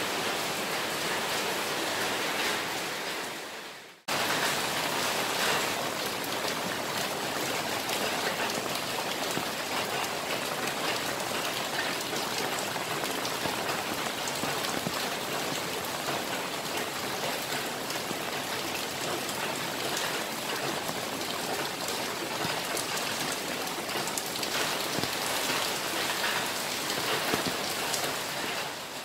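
A downpour of rain falling steadily as an even, dense hiss. It fades out and comes straight back about four seconds in.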